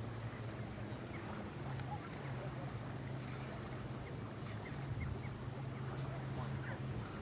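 A motorboat engine droning steadily, its low hum shifting in pitch a few times, with short bird calls chirping here and there.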